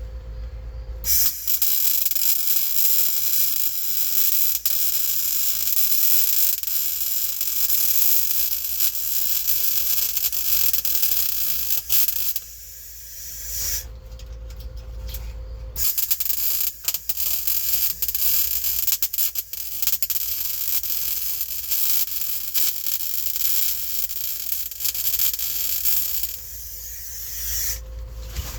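Welding arc crackling steadily while filling a gap in a sheet-steel floor pan, in two long runs of about ten seconds each with a short pause between.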